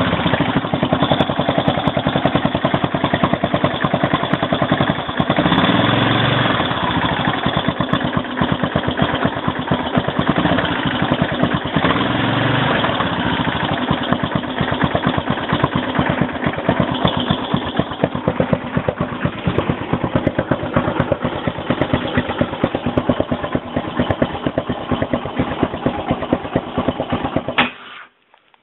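Yamaha XT600E single-cylinder four-stroke engine running at low rpm with a fast, even beat, its revs lifting briefly twice, then cutting off near the end. The owner hears a "ping" in it at low rpm and wonders whether something is wrong.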